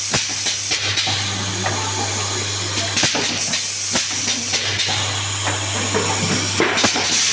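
Automatic confetti filling machine running: a steady motor hum with knocks and bursts of hiss that come round about every three seconds as it cycles.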